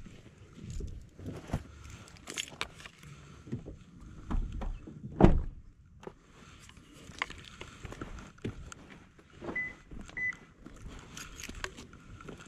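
Scattered clicks, knocks and rattles, with one loud thump about five seconds in and two short high beeps a little after the middle.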